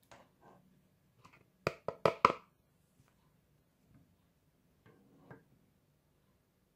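A quick run of four sharp knocks about two seconds in, with a few softer taps and clinks before and after: a plastic funnel and glass jars being handled on a table.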